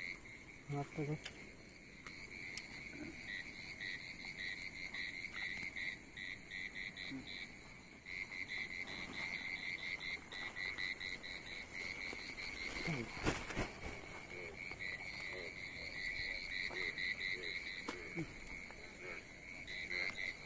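A dense chorus of frogs calling in rapid, pulsed trains of notes, going on without a break. A short rustling knock stands out about thirteen seconds in.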